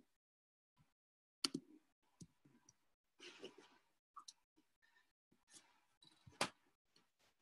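Near silence broken by scattered faint clicks, the two sharpest about a second and a half in and near the end, with a short rustle around the middle.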